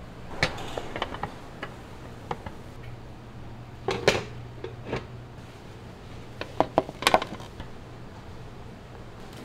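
Heavy earthenware serving bowls clinking and knocking against wire metal stands and the counter as they are set out: scattered knocks, the loudest about four seconds in and a quick cluster of three around seven seconds. A steady low hum runs underneath.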